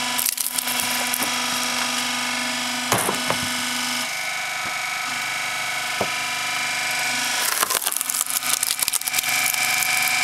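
Hydraulic log splitter running steadily with its pump drone while its ram forces a log onto the wedge: the wood cracks and splinters in sharp snaps, with a quick run of splintering cracks near the end.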